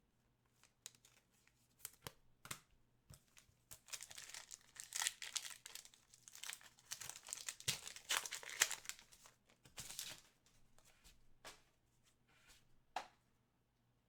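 Plastic wrapper of a hockey card pack being torn open and crinkled, with light clicks of cards being handled; the crinkling is densest in the middle and thins to scattered clicks near the end.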